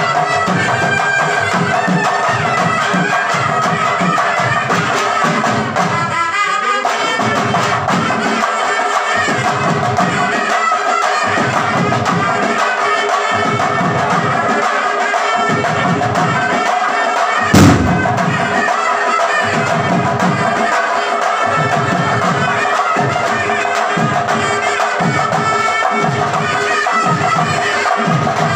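Traditional folk music: a reedy wind instrument holding steady tones over drum beats about once a second. A sharp knock comes about two-thirds of the way in and is the loudest sound.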